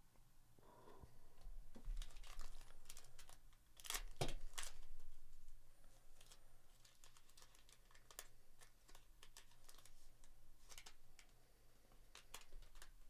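Foil trading card pack wrapper (Panini Select UFC) being torn open and crinkled by hand. The crackling is loudest about two to five seconds in, then lighter crinkles follow as the cards are pulled out.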